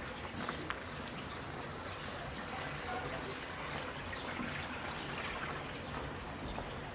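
Water trickling and pouring steadily, with scattered faint ticks.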